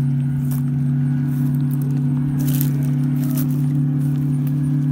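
A steady low motor hum, even and unchanging, with a few brief clicks or rustles on top.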